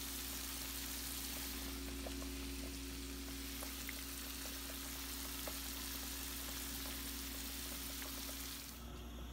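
Food frying in a pan: a steady sizzle with faint scattered pops, over a steady low hum. The sizzle drops away near the end.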